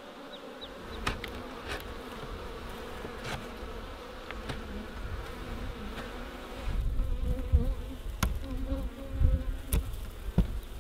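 Honey bees buzzing steadily from an open, crowded hive, with scattered clicks and scrapes of a metal hive tool against wood and wax. From about seven seconds in, low rumbling and knocks join.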